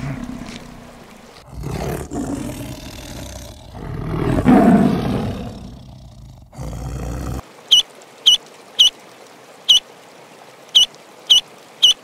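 A water buffalo's low call fades out at the start, then a tiger roars in two long, rough calls, the second louder. After that come about seven short, high peeps from mallard ducklings, spaced unevenly.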